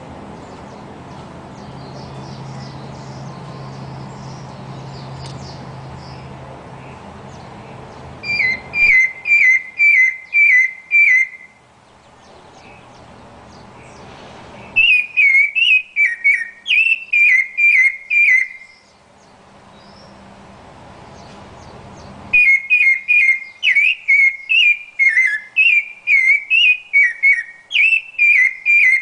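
Rufous-bellied thrush singing: three phrases of short, clear whistled notes repeated about twice a second, the first starting about eight seconds in and the last running to the end. A steady background rush comes before the first phrase.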